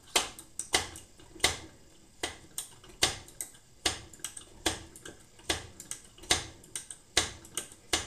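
Hand plunger pump on the fuel tank of a Clayton and Lambert plumber's furnace being stroked to pressurise the tank: a sharp click at each stroke, a little more than one a second, with fainter clicks in between.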